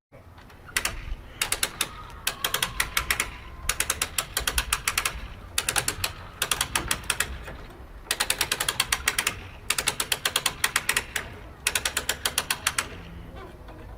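Winch ratchet clicking in quick runs of about ten clicks a second, each run lasting about a second, over and over, as the winch cable is wound in to haul a framed wall upright.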